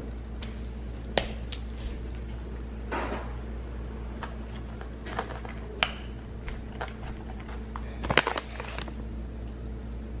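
Kitchen utensil clatter: a spoon clinking and scraping against a bowl and jars in a few sharp knocks, the loudest cluster near the end, over a steady low hum.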